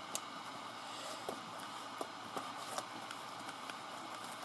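A few faint, sharp clicks and taps of small soldering tools being handled on the workbench, over a steady low hiss.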